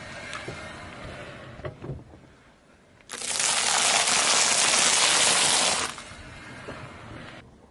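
Car tyre rolling onto and crushing a pile of popped popcorn: scattered light crackles and a few sharp clicks, then about three seconds in a loud, dense crunching crackle that lasts nearly three seconds before dropping away.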